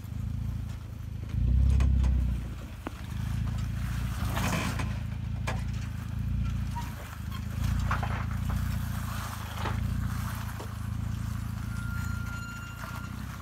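Third-generation Toyota Tacoma's engine running low and slow as the truck crawls down a rock ledge, swelling briefly about two seconds in. Scattered clicks of tyres and metal on rock, with a short scraping crunch about four and a half seconds in.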